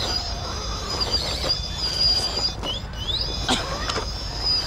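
A 1/10-scale RC crawler truck's electric motor and gearbox whining, the high pitch wavering and sliding up and down with the throttle as it crawls. A few sharp clicks come through partway along.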